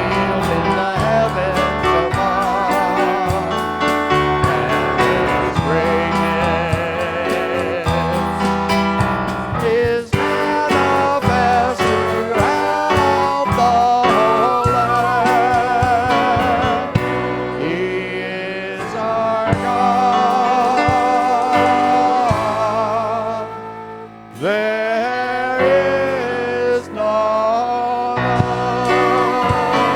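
Worship music: a band playing a song with a singing voice over a steady beat. The music thins out briefly about three-quarters of the way through, then picks up again.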